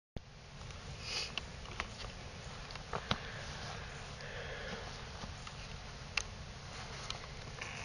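Low steady background hiss from a camcorder outdoors, with scattered small clicks and a short breath or sniff close to the microphone about a second in.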